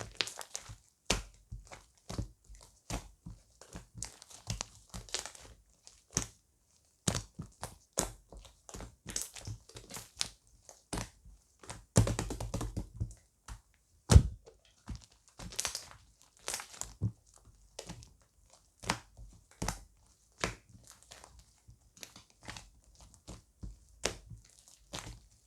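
Foamy chocolate-coloured slime being squeezed and pressed by hand, giving a string of irregular sticky clicks and small air-bubble pops. It is busier about halfway through, followed by one loud snap.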